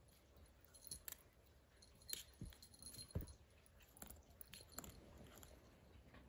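A few faint, scattered clicks and taps over near silence as a kitten bats at and bites a ruler.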